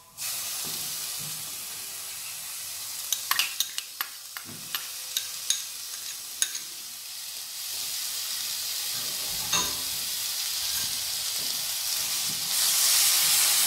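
Chopped tomatoes going into a hot non-stick pan of fried onions and spices, sizzling steadily. A spoon clicks sharply against the bowl several times while scraping the tomatoes out. Near the end the sizzle gets louder as the mixture is stirred around the pan.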